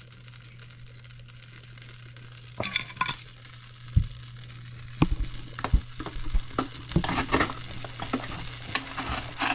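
Utensil clinking and scraping against a dish as fish sauce and seasonings are mixed into raw meat for a marinade. Quiet at first, with a couple of knocks around three and four seconds in, then frequent clinks from about five seconds on, over a steady low hum.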